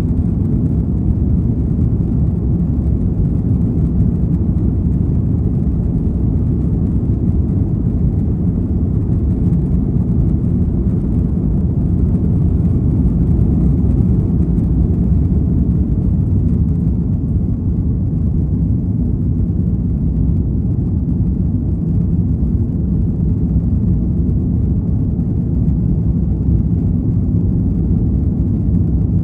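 Cabin noise of an Airbus A330 taking off: a loud, steady low rumble of the engines at takeoff thrust, running on unchanged through the takeoff roll, liftoff and initial climb.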